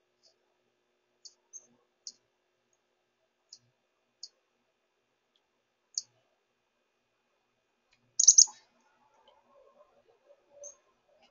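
Chickadee giving short, high chip notes, about seven scattered through the first six seconds. About eight seconds in comes a much louder burst of high calls, then fainter lower scratchy sounds and one more chip near the end.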